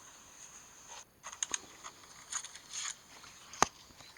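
An iPhone's speaker giving out an unexplained glitch noise that clatters ('gasha gasha'): scattered crackles and clicks, with one sharp click near the end.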